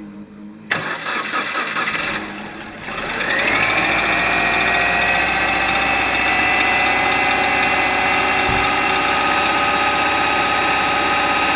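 Subaru Forester SG5 turbo flat-four cold-started: the starter cranks briefly, the engine catches about three seconds in with a rising whine, then settles into a steady fast idle. It is an engine that knocks, and it starts to tap once running, which the seller takes as reason enough not to sell it as a complete engine.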